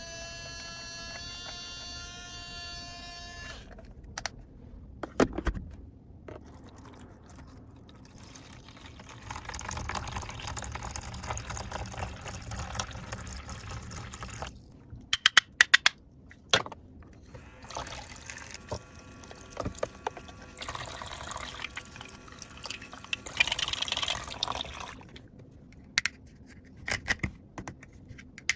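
Water poured and running into a toy kitchen playset in two stretches, with sharp plastic clicks between and around them. It opens with a short electronic toy chime lasting a few seconds.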